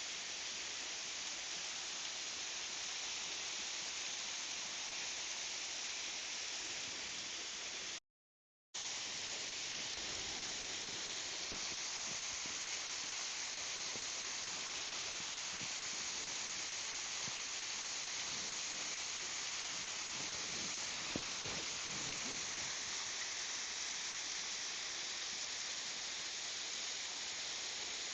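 Waterfall rushing with a steady hiss of falling water, broken once by a brief dropout to silence about eight seconds in.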